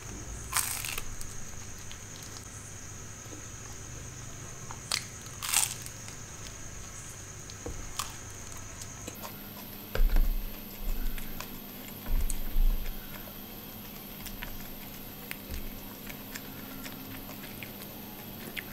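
Close-miked eating sounds: two crunchy bites into a taco, about half a second in and again around five and a half seconds, with soft chewing and small mouth clicks between. A few dull thumps around ten and twelve seconds are the loudest sounds.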